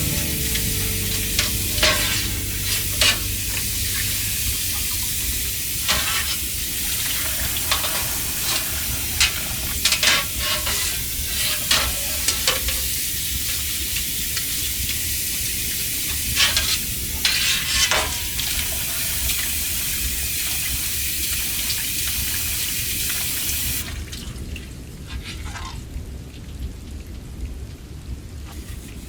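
Food frying and sizzling in a pot, with a utensil stirring and scraping through it in short strokes. The sizzle cuts off sharply about four-fifths of the way in, leaving a much quieter, duller sound.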